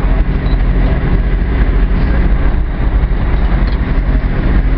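Fishing boat's engine running steadily, with the rush of water along the hull.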